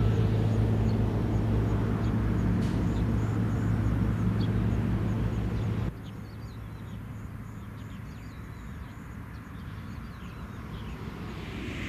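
A steady low engine drone, slowly fading, that cuts off abruptly about halfway through. What follows is quieter outdoor ambience with scattered bird chirps, and a swelling rush of noise near the end.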